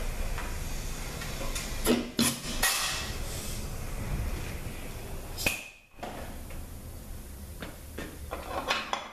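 Short hisses of compressed air from an air nozzle blowing the reverse clutch piston out of its bore in a Ford 4R100 transmission case, mixed with sharp metallic clicks and clanks of the parts. The strongest hisses come about a third of the way in and just past the middle.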